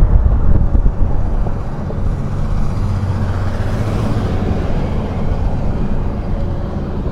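Vehicle traffic on the bridge, a steady low rumble with a passing vehicle swelling and fading about halfway through, and wind buffeting the microphone in the first second.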